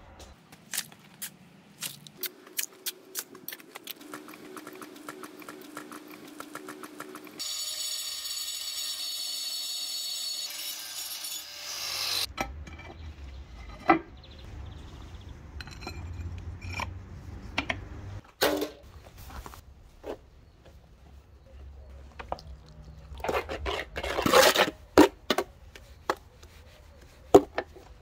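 Hand-tool work on masonry: a quick run of sharp clicks and knocks, a few seconds of steady high-pitched machine noise, then scattered knocks and metal scrapes, with a loud cluster of impacts near the end.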